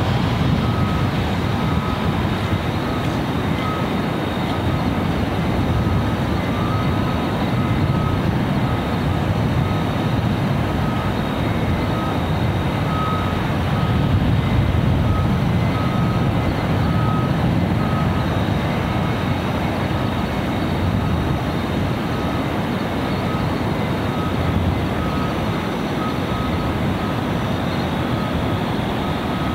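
Steady low rumble of distant industrial machinery, with a vehicle's reversing alarm beeping faintly and repeatedly about once a second.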